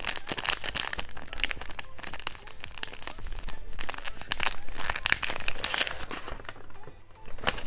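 Wrapping paper being torn and crumpled by hand as a small gift is unwrapped: a dense run of crackles and rips, with a short lull near the end.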